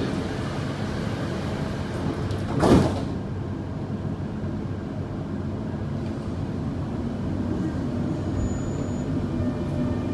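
Dubai Metro train's sliding doors shutting with a single thud about two and a half seconds in, followed by the steady running noise of the Alstom train.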